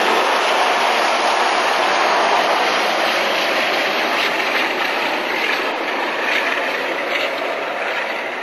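Jet noise from a Boeing 737-400's CFM56 turbofan engines as the airliner passes low on landing: a steady, loud rushing sound that slowly fades over the last few seconds as the aircraft touches down and moves away.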